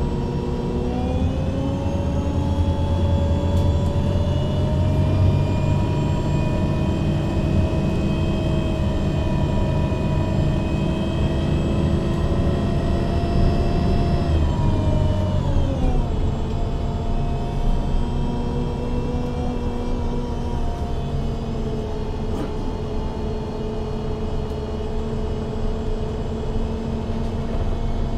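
MAN Lion's City G CNG articulated bus's engine and Voith automatic gearbox under way, the pitch climbing slowly for about half the time, then falling off and running steadier and lower.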